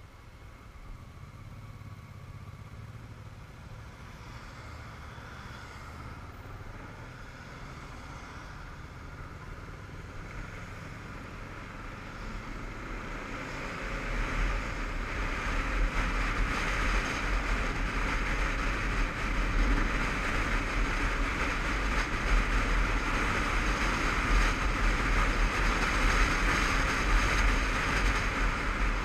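Ride noise from a Honda CBF500 parallel-twin motorcycle, heard from a helmet-mounted camera: engine rumble and wind rush, fairly quiet at first, then growing louder about halfway through as the bike speeds up, and holding a steady loud hiss and low rumble after that.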